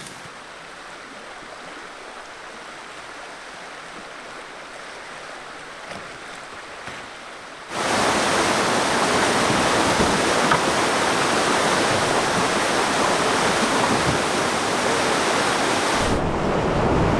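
River rapids: a steady rush of fast-moving whitewater, which becomes suddenly much louder about eight seconds in.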